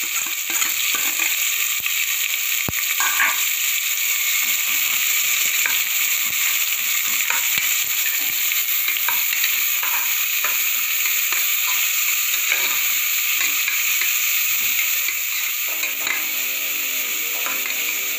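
Chopped onions sizzling in hot oil in a pressure cooker pot, sautéing until soft, while a metal spoon stirs them with scattered clicks and scrapes against the pot.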